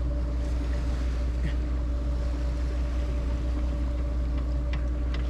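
A boat's engine running steadily: a low, unchanging hum with a constant tone. A few faint clicks come near the end.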